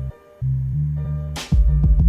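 Background music with a steady low bass line and a sharp drum hit about one and a half seconds in.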